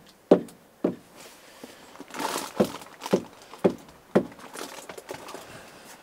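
Boots thudding on a van's step and floor, six evenly spaced steps about two a second in two groups, with a short rustle between them.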